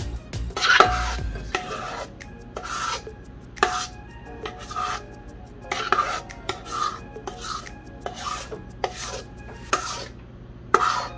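Spatula scraping cake batter out of a stainless steel mixing bowl into a bundt pan: a run of short scraping strokes, a little more than one a second.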